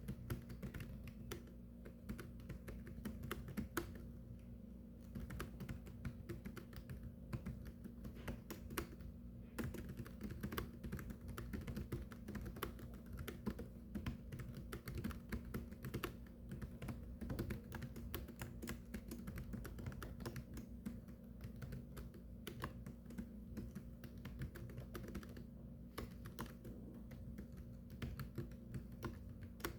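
Continuous typing on a keyboard: a steady, irregular stream of key clicks over a low steady hum.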